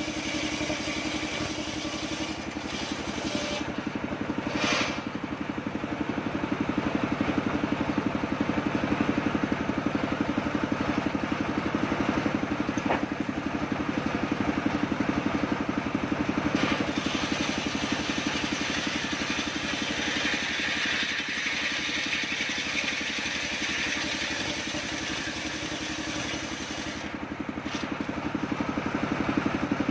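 Engine of a homemade circular sawbench running steadily, driving the large blade, while a coconut-wood log is fed through it; the cutting adds a higher rasping tone about two-thirds of the way in.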